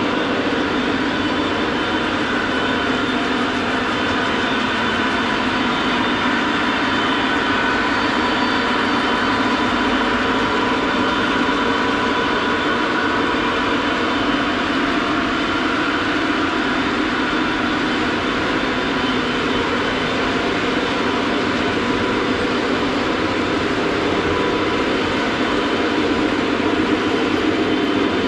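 O-gauge three-rail model trains running on a layout: a steady rumble of metal wheels rolling over track as a long train of model tank cars passes, with a steady hum under it.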